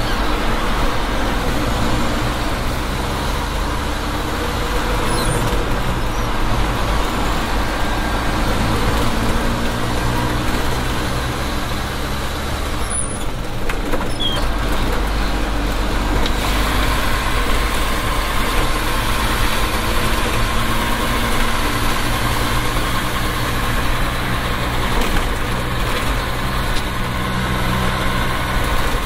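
Nissan Diesel PF6TB turbo-diesel engine of a Tadano GT550E truck crane running steadily under way, heard from inside the cab with the side window partly open, with road and wind noise over the low engine drone.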